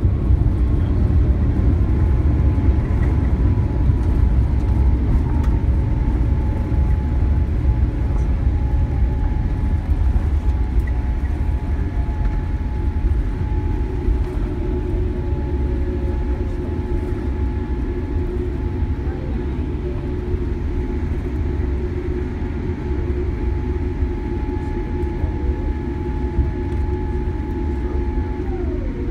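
Cabin noise of a Boeing 787-8 slowing on the runway after touchdown: a loud, steady low rumble with several steady whines over it. One whine drops in pitch near the end.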